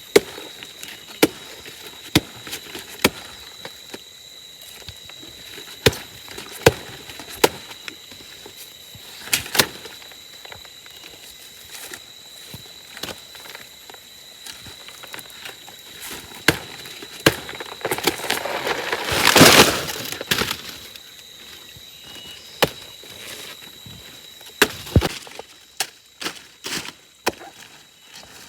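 Blade chops into the soft trunk of a banana plant being felled: sharp separate strikes at irregular intervals, with one longer, louder rustling crash about two-thirds of the way through.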